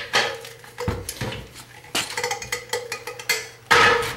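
Rusted-on brake drum of a Ford 9-inch rear axle being struck over and over, giving irregular ringing metal clanks, the loudest near the end. The drum is rusted fast to the axle and is being beaten to break it loose.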